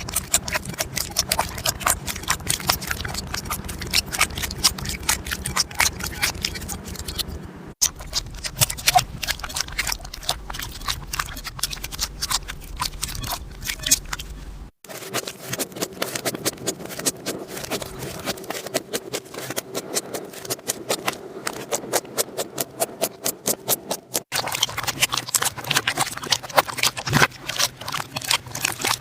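Slime being squished and worked, giving rapid runs of sticky pops and clicks. The sound breaks off and changes three times.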